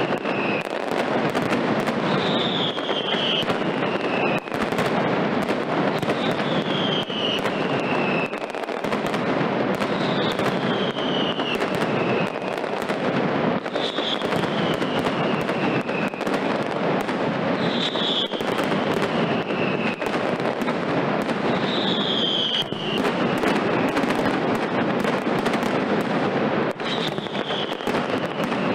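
Mascletà: a dense, unbroken barrage of firecracker bangs and crackling. Short falling whistles cut through it about every four seconds.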